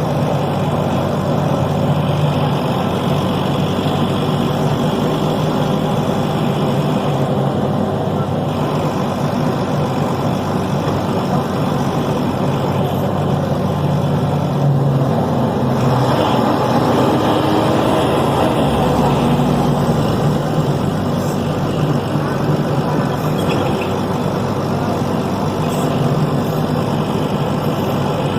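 Deutz BF6M 1013 six-cylinder turbodiesel of a Tatsa Puma D12 city bus running steadily, its pitch shifting and rising for a few seconds around the middle.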